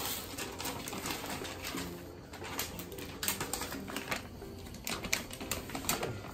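Bengal kitten scratching in cat litter in a plastic litter box: a run of small gritty clicks and rustles, with a few sharper clicks later on.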